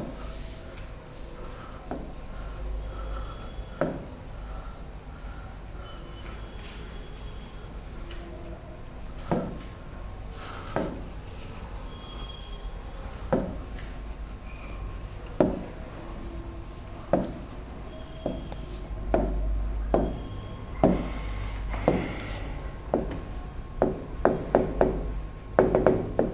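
A hand sweeping and rubbing across an interactive touchscreen whiteboard to erase it, with a single sharp tap on the screen every second or two, over a steady low hum. Near the end comes a quick run of taps and scratches as writing on the board begins.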